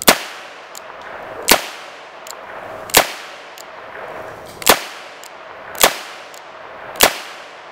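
Rock Island Armory M200 .38 Special revolver fired six times, one shot about every second to second and a half.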